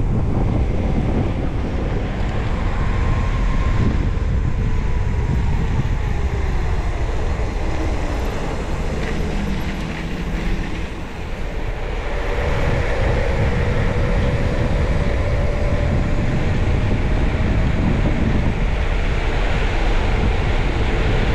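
Wind rushing over the microphone of a handlebar-mounted camera on a moving mountain bike, over a steady low rumble of the tyres rolling on the road. A faint humming tone wavers in pitch in places, and the noise dips briefly about eleven seconds in.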